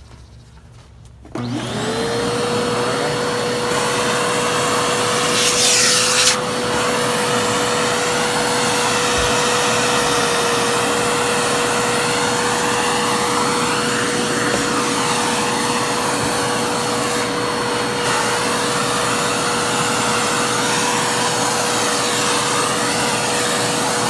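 Samsung Cyclomax canister vacuum cleaner switched on about a second in, its motor whining quickly up to speed and then running steadily as it sucks sand and dirt off a wooden floor through its repaired hose. A short, louder rush comes about five seconds in.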